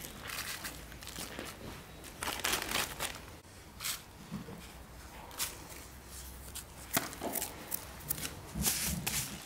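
Plastic bag lining crinkling and rustling in irregular short crackles as hands sprinkle coarse salt over pieces of raw meat and rub it in, salting the meat for drying.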